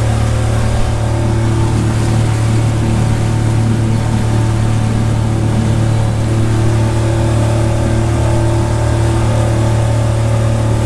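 A barbecue boat's motor running at a steady cruising speed, a constant low hum, with water rushing along the hull.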